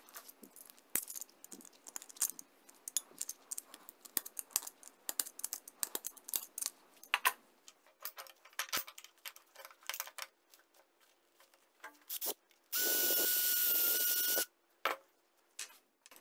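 Gloved hands handling a small steel CO2 cartridge and clamping it in a small metal vise: a run of clicks, taps and rubbing. About thirteen seconds in, a loud, steady, high-pitched hissing whine lasts under two seconds and cuts off suddenly.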